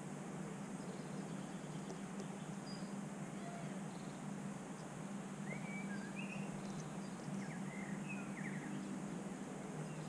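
Steady outdoor background hiss with a low hum, and a few short, high chirps from a small songbird about halfway through.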